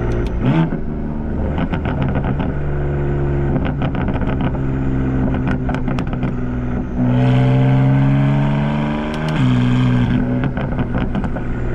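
BMW M4's S55 twin-turbo inline-six running through catless downpipes and the stock muffler while driving, steady at first, then rising in pitch under acceleration from about seven seconds in before dropping back near nine seconds. Scattered sharp clicks run through it.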